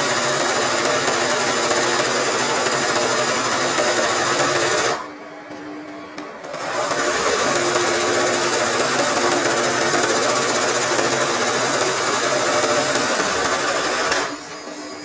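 Sewing machine stitching fast and steadily as free-motion embroidery is guided under the needle. It stops about five seconds in for a second and a half, leaving only a faint hum, then runs again and stops near the end.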